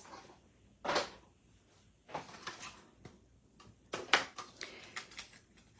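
Clear plastic cutting plates from a die-cutting machine being handled and separated on a desk: a few plastic knocks and short sliding rubs, the loudest about four seconds in.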